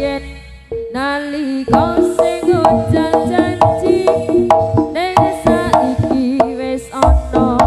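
Jaranan gamelan music played through a PA system: hand-drum (kendang) strokes and struck metal keys under a bending lead melody line. It drops away briefly at the start and comes back in about a second later, with a deep low stroke about seven seconds in.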